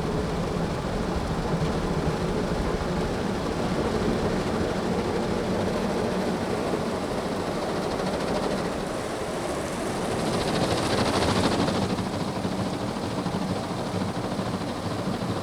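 Car demister fan blowing on high inside the cabin, over the steady noise of an automatic car wash working through its brush cycle. A louder rush of noise swells about ten seconds in and fades a couple of seconds later.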